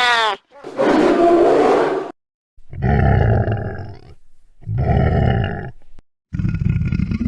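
Sound-effect creature growls and roars: a string of rough, loud calls of a second or so each, separated by short silences, two of them almost identical repeats.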